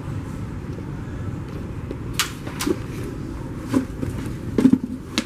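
A handful of short knocks and scuffs, a rubber boot being pulled off a foot and handled, mostly in the second half and loudest near the end, over a steady low background hum.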